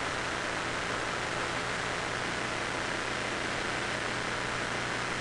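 Large crowd applauding steadily: a continuous, even wash of many hands clapping.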